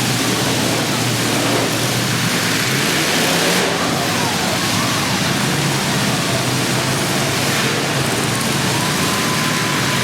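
Several demolition derby cars' engines running and revving together in a loud, steady din.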